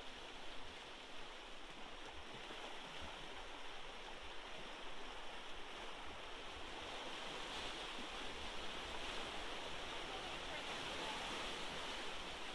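Faint, steady wash of small Lake Superior waves lapping along the shore.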